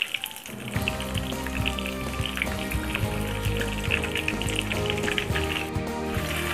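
Breaded chicken cutlet deep-frying in a pan of oil, a steady sizzle with dense crackling pops, as hot oil is spooned over it. Background music comes in about a second in and runs under the frying.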